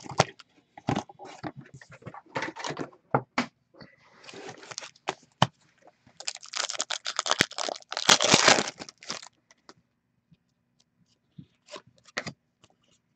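Foil packs of 2016-17 Upper Deck Artifacts hockey cards are handled out of their cardboard box, with a run of sharp clicks and scrapes. About six seconds in, a pack's foil wrapper is torn open and crinkled for about three seconds, the loudest part. A few light clicks follow as the cards are handled.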